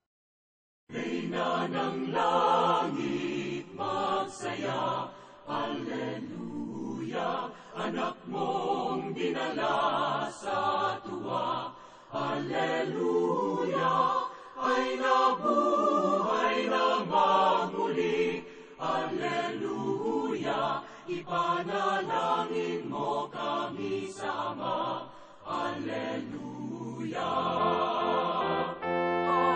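Church choir singing a slow chanted hymn, beginning about a second in after a brief silence and running on in phrases with short pauses between them.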